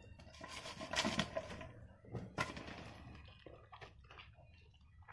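Cauliflower florets being dropped into thick gram-flour batter in a steel bowl and mixed in by hand. The batter and florets make irregular soft sounds, loudest about a second in and again after two and a half seconds, then smaller ones.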